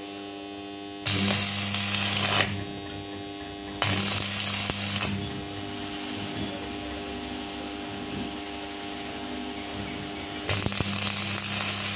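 Stick (arc) welding: the electrode arc crackling and sizzling as a steel foot is welded onto a compressor's steel shell, loudest in three bursts, about a second in, about four seconds in and again near the end, over a steady electrical hum.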